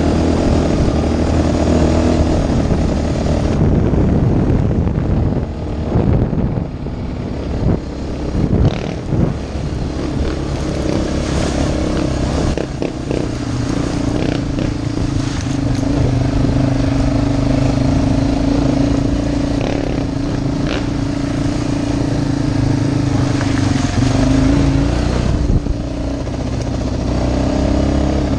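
Off-road vehicle's engine running as it rides a rough dirt trail, its note shifting as the throttle eases and picks up, with knocks and rattles from bumps, most of them a few seconds in. The engine settles to a higher, steadier note about halfway through.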